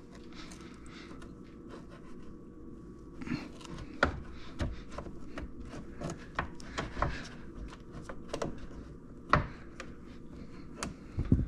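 Plastic push clips on car trim being worked loose with a pop-clip removal tool: scattered clicks, taps and scraping, with a few sharper knocks, about four seconds in, around nine seconds and near the end.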